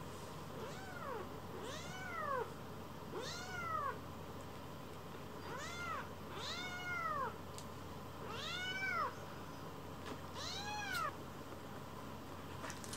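Baby tabby kittens mewing over and over, about seven short high-pitched mews that each rise and fall in pitch.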